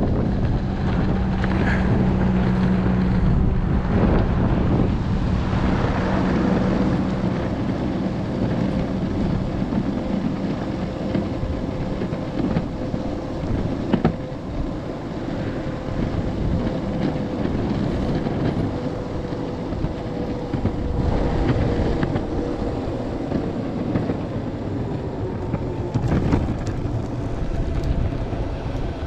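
A MEEPO Shuffle S electric skateboard being ridden: its 105 mm wheels rumble over pavement while wind buffets the microphone, and the hub motors give a steady whine through most of the ride. There is a single sharp click about halfway through.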